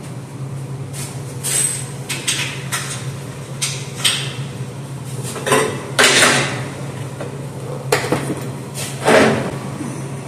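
Irregular metal knocks and clanks as a welded steel hitch bracket and tools are handled on a steel welding table, the loudest about six and nine seconds in, over a steady low hum.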